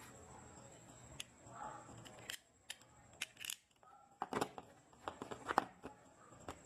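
Scattered sharp clicks and light plastic snaps from a Pretul utility knife being handled and fitted back into the moulded plastic slot of its tool case, the loudest a few seconds in.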